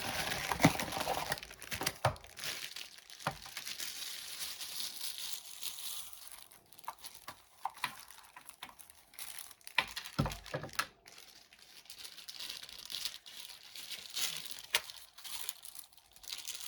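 Plastic wrapping crinkling and rustling as it is handled and pulled off, with scattered clicks and knocks.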